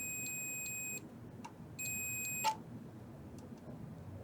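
Digital multimeter beeping in continuity mode as its probes touch a ground point and the chassis: a steady high beep that stops about a second in, then a second, shorter beep near the middle, with light clicks of the probes. The beep signals electrical continuity to chassis ground.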